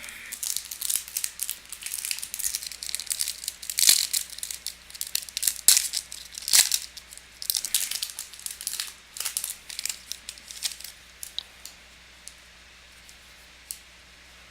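A trading-card pack wrapper being torn open and crinkled: a dense run of sharp crackles that thins to a few isolated crinkles in the last few seconds.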